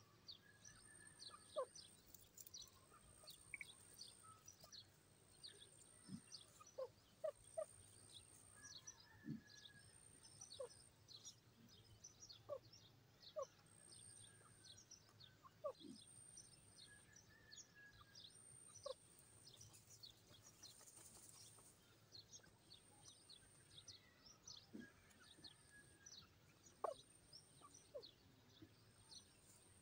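Faint outdoor chirping of birds: many short high chirps scattered throughout, a few brief falling notes, and a thin high note repeating about every second and a half.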